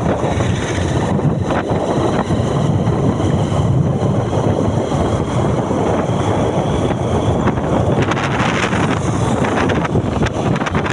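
Train running: a loud, steady rumble with wind buffeting the microphone.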